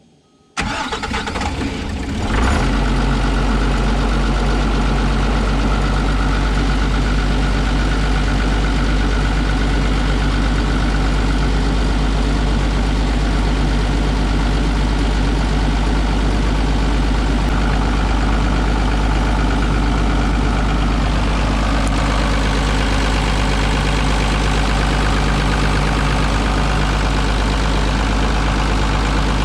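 Kobelco SK250LC excavator's diesel engine starting about half a second in, picking up about two seconds in, then idling steadily; it is being run after a fresh oil change to check for leaks. Its note changes slightly about twenty seconds in.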